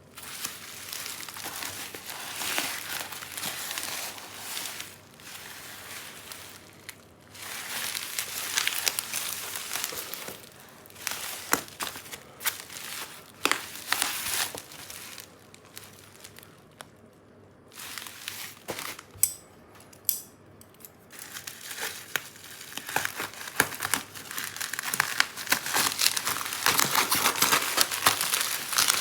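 Keyboard packaging being unwrapped by hand: plastic and paper wrapping crinkling and rustling in stretches, with sharp crackles. There is a lull a little past halfway, and the rustling grows denser and louder near the end.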